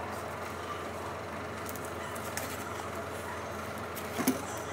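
Steady low mechanical hum, with a few light clicks and crinkles from a plastic-wrapped foam tray of raw ground beef being handled, and one sharp knock near the end.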